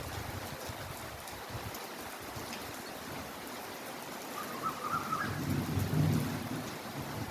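Steady heavy rain falling. A low rumble swells up under it in the second half.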